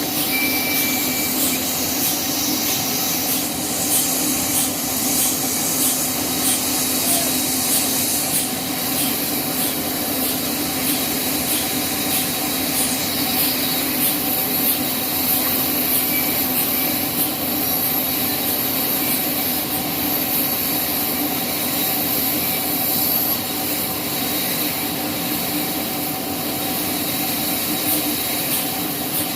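Sawmill saw running in a steady, unbroken drone with a constant hum and a high hiss.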